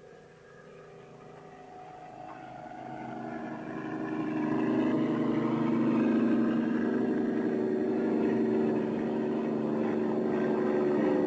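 A motor vehicle's engine running, growing louder over the first few seconds and then holding at a steady level.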